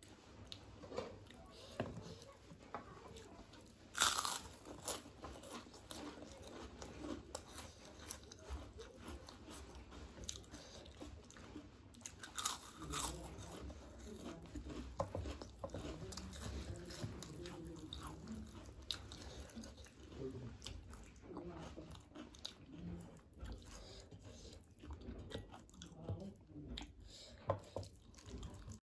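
Close-miked chewing and mouth sounds of a person eating khichuri and egg curry by hand. There are two louder sharp sounds, about four and twelve seconds in.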